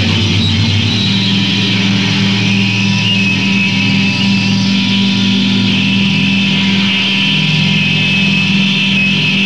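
Loud, heavily distorted band noise from a Japanese noisecore group's 1996 live rehearsal tape: a steady wall of droning distorted tones with a hissy top, the low pitch shifting about a second in.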